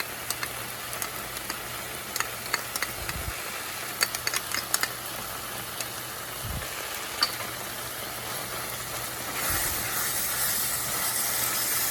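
Spatula stirring thick butternut squash halwa in a non-stick pan, with scattered light ticks and scrapes against the pan and a steady sizzle of the mixture frying in ghee. The sizzle gets louder near the end.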